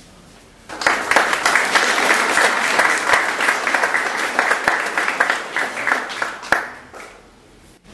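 A group of people applauding. The clapping starts abruptly about a second in and dies away near the end.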